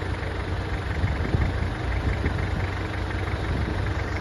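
Mitsubishi Pajero's engine idling steadily, a low even rumble.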